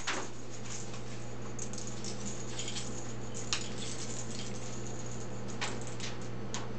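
Scattered light rustles and clicks of a pet raven (common × white-necked raven hybrid) stepping and poking about on a bed of timothy hay, over a steady low hum.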